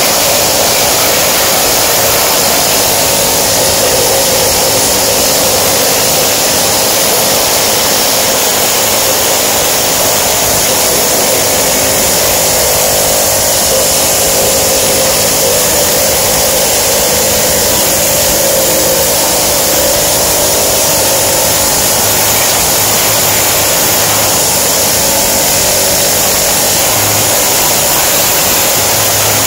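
A loud, steady machine noise that runs without a break and has no separate blows or strokes in it.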